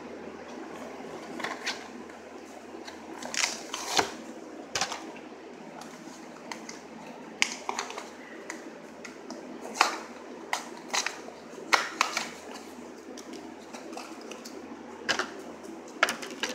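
Plastic blister and cardboard backing of a carded Matchbox toy crackling, snapping and tearing in irregular sharp bursts as the package is pulled open by hand.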